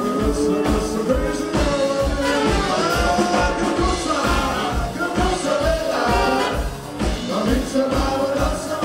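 Live jazz-blues band music: a man singing over electric guitar, upright double bass and horns, with a steady beat.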